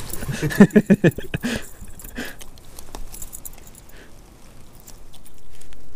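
Hands unhooking a small, freshly caught Arctic char: scattered light clicks, taps and rustles, busiest in the first couple of seconds, with a steady hiss coming in near the end.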